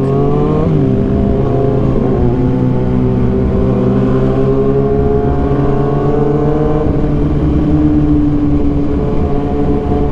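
Kawasaki ZX-6R 636's inline-four engine with an Arrow exhaust, running at fairly steady revs. Its pitch dips briefly about a second in, then holds mostly even with slow small drifts.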